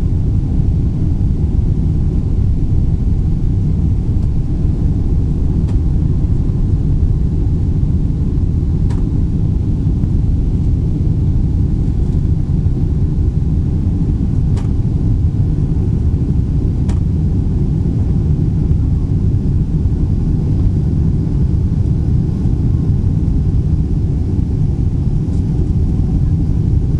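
Steady low rumble inside the cabin of a Boeing 777-300ER climbing just after takeoff: its GE90-115B jet engines at climb power together with the rush of air past the fuselage.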